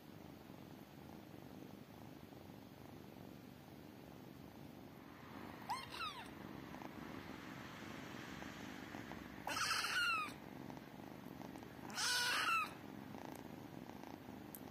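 Kittens purring: a steady, soft low rumble. Three short high-pitched calls cut across it, about six seconds in, then louder ones at about ten and twelve seconds.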